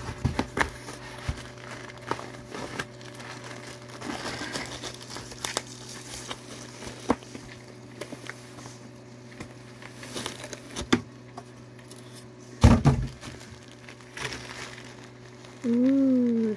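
Packaging crinkling and rustling as a new blanket is unwrapped and handled, with scattered small clicks. A thump about three-quarters of the way through, and a short hummed voice sound near the end.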